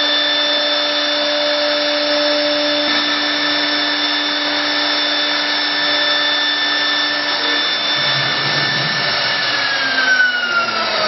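Twin-spindle 1325 CNC router carving wood: a steady high spindle whine over the hiss of the bits cutting. About ten seconds in, the whine starts to fall in pitch.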